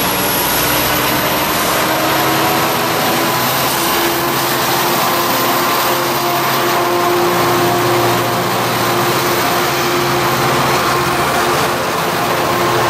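A Coaster F59PHI diesel-electric locomotive's engine runs loud and steady under load as the train pulls out of the station, with a faint high whine slowly rising in pitch.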